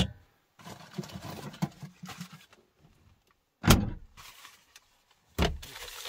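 A low cabinet in a camper van opened and rummaged in: soft rustling and knocking, then two heavy thuds about three and a half and five and a half seconds in.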